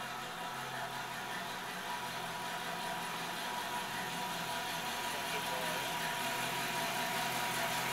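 Hot rod roadster's engine running steadily at low, idle-like speed as the car rolls slowly closer, growing gradually louder.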